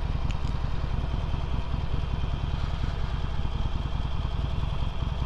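Harley-Davidson Sportster's V-twin engine running steadily while riding, under a heavy even rumble of wind on the microphone.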